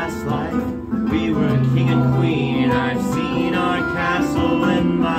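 Live acoustic music: a harp and an acoustic guitar playing together, plucked strings.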